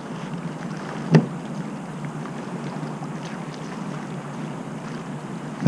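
Steady rush of water and wind around a kayak, with a single sharp knock about a second in.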